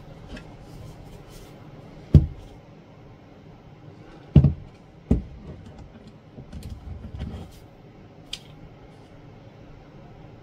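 Handling noise from a cordless impact driver fitted with a plastic bit-holder adapter: three sharp knocks, the last two less than a second apart, then a short run of softer clicks and rattles and a final small tick.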